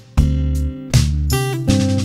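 Background instrumental music: plucked, guitar-like notes over a deep bass line.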